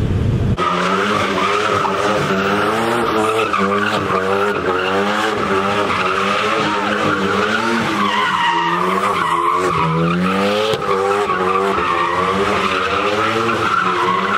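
Car doing donuts: its tyres squeal without a break while the engine's revs rise and fall over and over as it spins, starting about half a second in.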